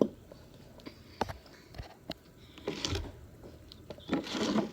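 Handling noises from slime-making supplies: a few sharp clicks and two short rustling, scraping noises, the second near the end the loudest.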